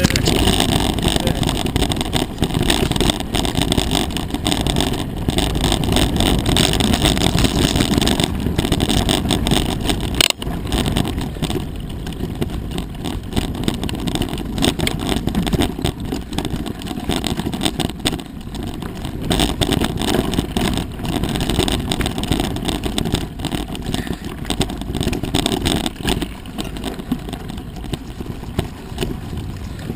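Mountain bike ridden along a dry dirt trail, recorded on a ride-along camera: wind buffeting the microphone over tyre rumble and frequent rattling knocks from the bike, with one sharp knock about ten seconds in.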